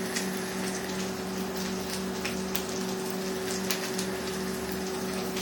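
A rebuilt sub-tank vape coil firing at about 20 watts, the e-liquid on the wick sizzling and crackling with scattered pops. A steady low hum runs underneath.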